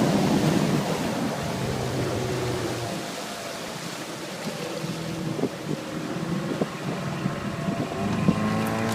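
Mariner 15 hp outboard motor running on a jon boat, with wind on the microphone. The engine eases off through the middle, then its revs rise near the end.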